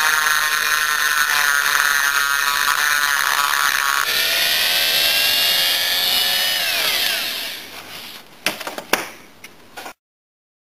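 Dremel-type rotary tool with a carbide bit grinding the aluminium transfer port of a Yamaha Blaster two-stroke cylinder, a steady high whine. About four seconds in its pitch jumps higher. After about seven seconds it falls in pitch as the tool spins down, followed by a few short knocks.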